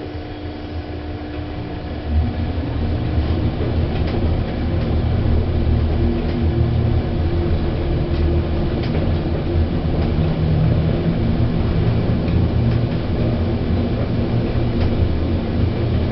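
Otis 2000 VF passenger lift car travelling upward: a steady low rumble with a faint hum, building over the first couple of seconds as the car gets under way, then running evenly.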